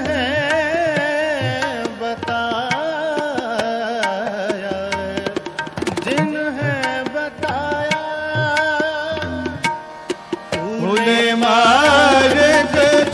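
Shabad kirtan music: tabla keeps a rhythm under a melody of long held notes that glide and bend in pitch, growing louder about eleven seconds in.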